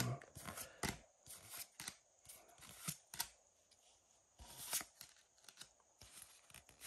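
Pokémon trading cards being flipped one at a time through a hand, each card slid from the front of the stack to the back with a soft rustle and a sharp little snap, at an irregular pace of about one or two a second.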